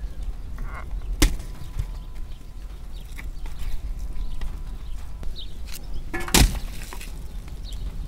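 Split firewood logs dropped into a brick-lined fire pit, landing with two sharp wooden knocks about five seconds apart, the second louder.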